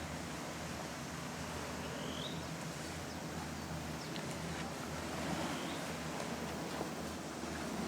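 Outdoor ambience with a steady low hum and hiss, through which a short rising call repeats three times, about every two and a half seconds.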